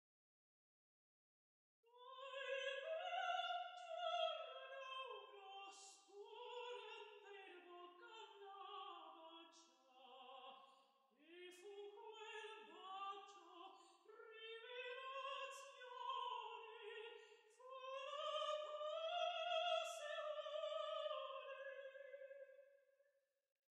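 Operatic singing by a single high voice without accompaniment, with a wide vibrato on long held notes. It begins about two seconds in, after a short silence.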